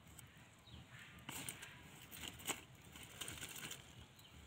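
Faint rustling and crackling of kohlrabi leaves and stalks as the plants are handled and pulled by hand, with a run of short snaps in the middle, the loudest about halfway through.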